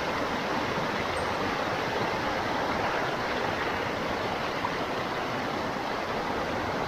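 Fast-flowing stream water rushing steadily.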